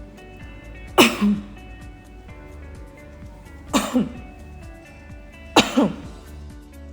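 A person coughing three times, each cough a quick double burst, about a second in, near the middle and again a second and a half later, over steady background music.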